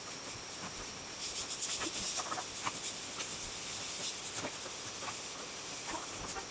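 Scratchy rustling and light clicks as old copper winding wire is pulled and worked out of a generator stator's steel slots. A steady high insect trill, typical of a cricket, runs underneath.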